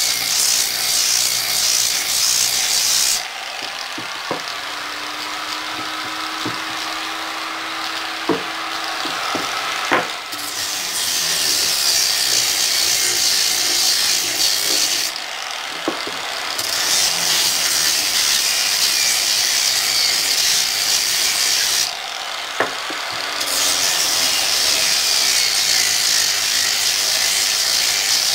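Power sander with a round sanding disc running and grinding along pine pallet-wood legs, a steady hissing scrub. The hiss drops away three times, for several seconds about three seconds in and briefly twice later, while the disc is eased off or moved along, with a few sharp knocks.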